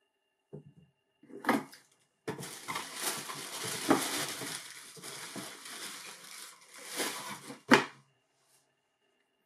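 Tissue paper rustling and crinkling inside a cardboard shoe box as hands rummage through it and lift out a sneaker. It is framed by knocks of the box: a soft thump and a sharp knock near the start, and the loudest knock near the end as the lid shuts.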